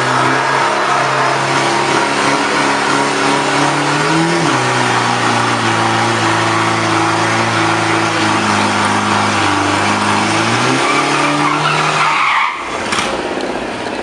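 Mitsubishi Triton pickup's diesel engine held at high revs during a burnout, rear tyres spinning with a hissing screech. The revs drop a step partway through and climb back later; near the end the engine note falls away as the truck rolls off.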